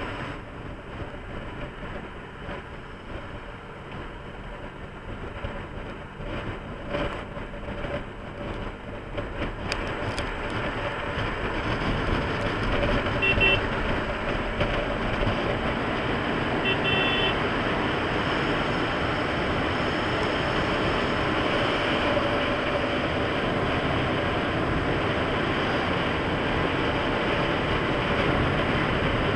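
Riding noise of a Bajaj Pulsar RS200 motorcycle at highway speed: steady wind rush with the single-cylinder engine running underneath. It grows louder about ten to thirteen seconds in as the bike speeds up to pass a bus, then holds steady. Two short high beeps come a few seconds apart near the middle.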